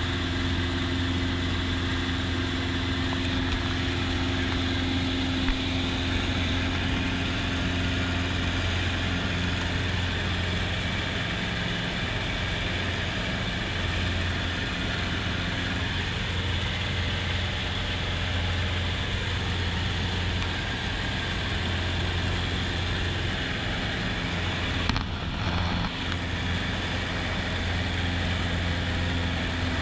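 Piston engine and propeller of a Cub bush plane running steadily in cruise flight, heard from inside the cabin, with a brief break in the drone near the end.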